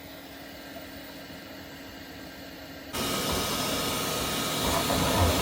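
A 3D printer running with a faint steady hum as it begins a print. About three seconds in, a much louder steady rushing hiss cuts in suddenly.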